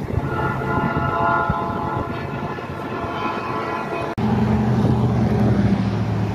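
Locomotive air horn sounding one long chord for about four seconds. Then, after a sudden cut, a steady low engine rumble with wind noise.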